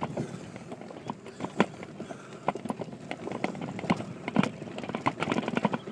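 Mountain bike rattling over bumpy ground, heard through a phone on a handlebar mount: a run of irregular knocks and clicks from the bike and mount.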